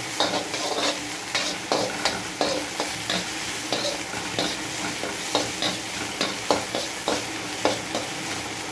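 Chopped vegetables sizzling in hot oil in a wok as they are stir-fried. A metal slotted spatula scrapes and knocks against the pan a few times a second.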